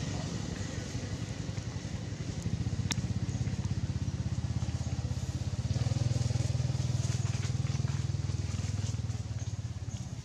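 An engine running steadily with a low, fast pulsing note, growing louder a few seconds in and easing off near the end, with a single sharp click about three seconds in.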